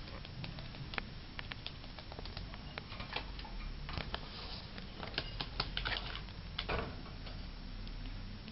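Irregular light clicks and taps, thickest in the middle few seconds, with a few short scratchy rustles: a Nyasa lovebird's feet and beak on the tabletop, cage tray and wires as it climbs back into its cage.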